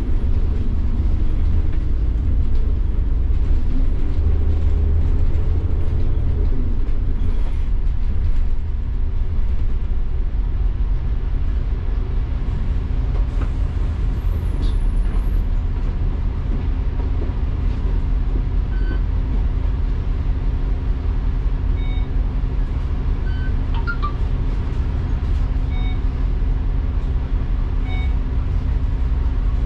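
Double-decker bus's diesel engine and running noise from the upper deck. The engine note climbs and falls away in the first several seconds, the noise drops a little after about eight seconds, and then it runs on steadily.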